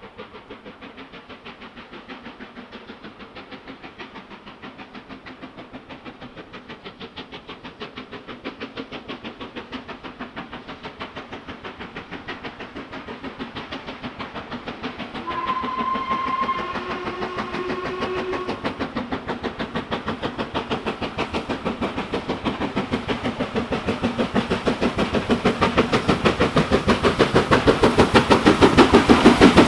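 LMS Princess Coronation Class Pacific 6233 'Duchess of Sutherland', a four-cylinder steam locomotive, working a train with fast, even exhaust beats that grow steadily louder as it approaches and passes close by. Its whistle sounds briefly about halfway through, in two notes.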